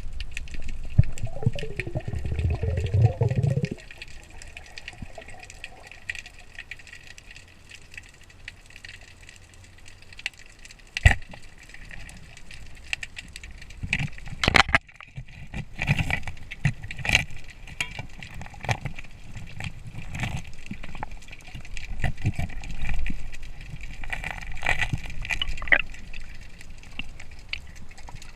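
Water sloshing and gurgling around an action camera during a spearfishing dive. For the first few seconds there is a low bubbling rumble, then a steady watery hiss with scattered sharp clicks and knocks.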